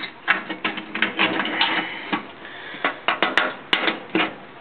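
Hands working the lid and rubber-strap latches of a metal tractor-cab toolbox: a rapid, irregular series of clicks, taps and small knocks.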